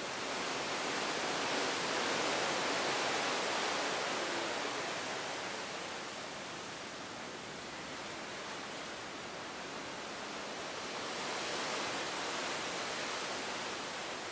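Steady rushing of seawater along the side of a moving cruise ship, mixed with wind, swelling louder twice: near the start and again near the end.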